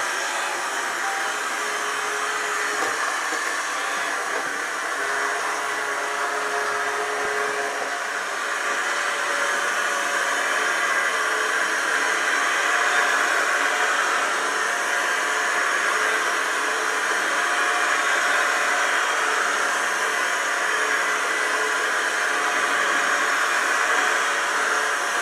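clever&clean M-series 002 robot vacuum cleaner running: a steady motor whir that grows a little louder about eight seconds in.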